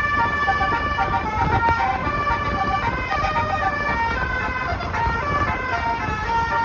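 Basuri 'telolet' musical bus horn playing a melodious tune of stepped notes, several tones sounding together, over a low rumbling noise.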